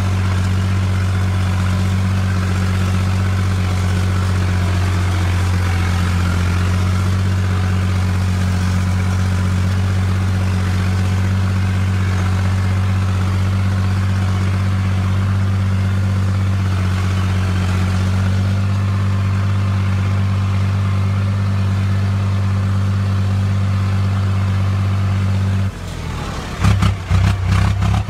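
Fiat tractor engine running at a steady, even speed, heard close from the driver's seat as the tractor drives over rough dirt. Near the end the steady drone drops away and gives way to irregular knocks and crackles.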